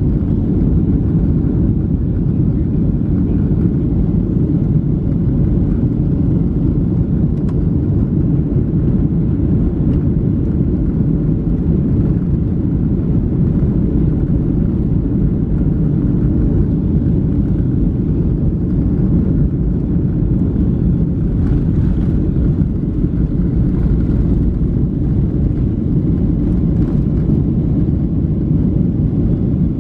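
Cabin noise of a Boeing 737-700 taxiing, heard inside the cabin: a steady low rumble from its CFM56 engines at taxi power and the airframe rolling, with no spool-up.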